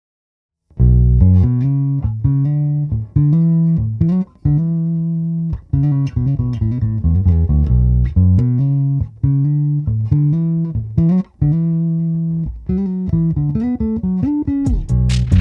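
Foals FJB7 electric bass guitar playing a riff of plucked notes, starting about a second in, with short breaks between phrases. Near the end the notes get sharper, brighter, clicky attacks.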